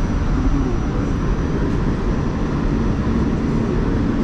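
New York City subway car running on the rails, heard from inside the car: a steady, loud rumble of wheels and running gear with a faint hum over it.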